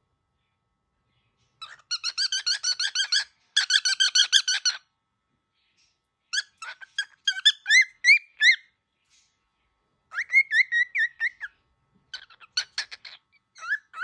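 Young cockatiel calling in rapid runs of high, repeated chirps, about ten a second, in five bursts of one to two seconds with short pauses between.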